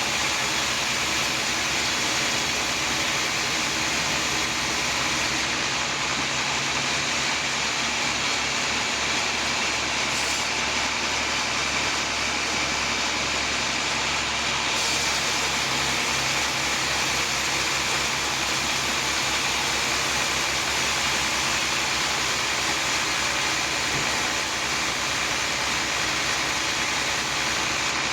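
Sawmill machinery running with a steady, continuous noise that does not let up.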